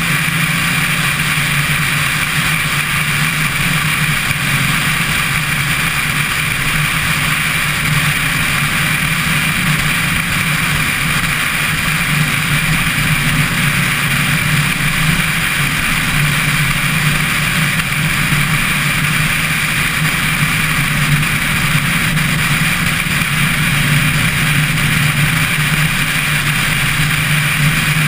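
Car cruising at a steady speed, heard from a camera mounted on its roof: an even engine drone mixed with road and wind noise.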